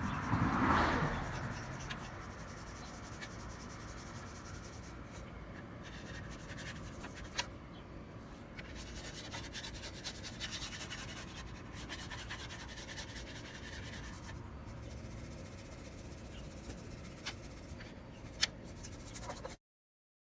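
A cloth rubbing whitening toothpaste over a plastic headlight lens, a steady scrubbing and scratching that is loudest in the first two seconds. Two sharp clicks stand out, and it cuts off abruptly near the end.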